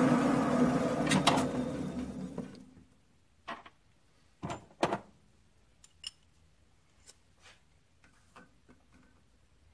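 Grizzly G9972Z lathe coasting to a stop after being switched off: the motor and spindle noise fades away over about three seconds. A few light knocks and clicks follow, two of them louder about five seconds in.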